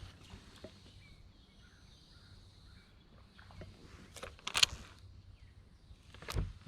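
Quiet outdoor background with a few faint calls, broken by a sharp knock about four and a half seconds in and a duller thump near the end.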